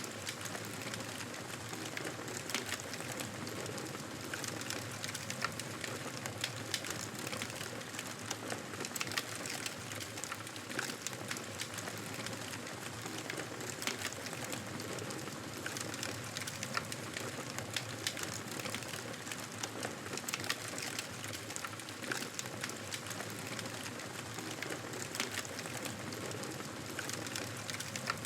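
Wood fire burning in a fireplace: a steady hiss of flames with frequent small, sharp crackles and pops scattered all through.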